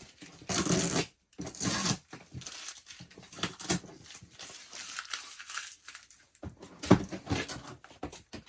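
Wrapping crinkling and rustling in short bursts as items are handled and pulled out of a storage bin, with a sharp knock about seven seconds in.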